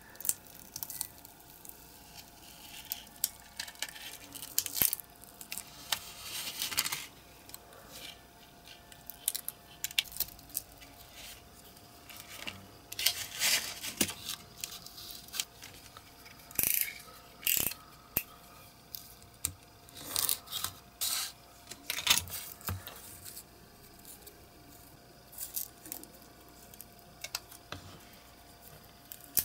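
A silicone mould and small cast resin parts being handled: irregular peeling, scraping and rubbing noises with sharp little clicks as the mould halves are pulled apart, the cast parts are taken out, and a part is trimmed with a craft knife.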